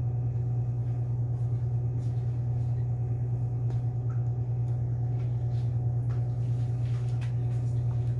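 A steady low hum throughout, with a few faint light clicks and taps as fruit is picked from plastic tubs and pushed onto a skewer.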